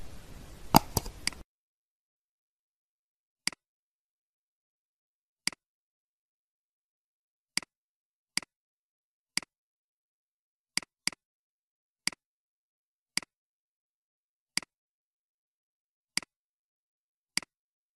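Computer mouse clicks: about a dozen single sharp clicks, one every one to two seconds, with dead silence between them. In the first second and a half a few louder clicks come over a hiss.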